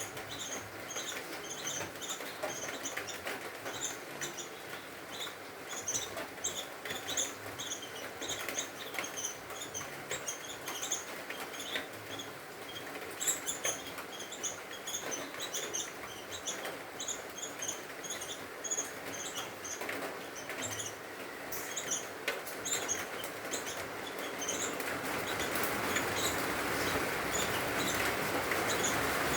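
Nestlings begging to be fed: rapid, high-pitched squeaky cheeps, several a second, over a steady background noise. The cheeping thins out after about twenty-four seconds while the noise grows louder.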